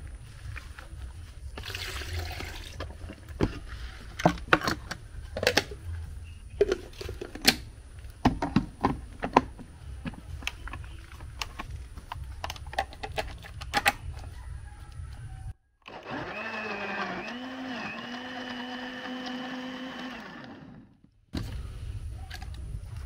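Irregular knocks and clicks for about fifteen seconds, then an electric blender running for about four seconds, its motor pitch rising as it spins up and then holding steady.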